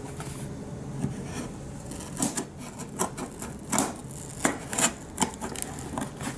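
Scissors cutting the packing tape along a cardboard box's seam: a run of short, sharp, irregular snips starting about two seconds in.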